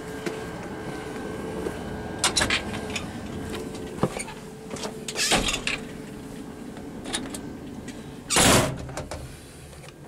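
Footsteps and handling noise while walking, with a few short knocks and one loud scraping rustle about eight and a half seconds in. Underneath is the steady hum of the window air conditioner running.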